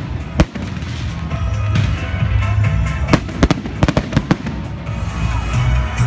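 Fireworks bursting overhead: a run of sharp bangs and cracks at irregular intervals, thickest about three to four seconds in, with music playing underneath.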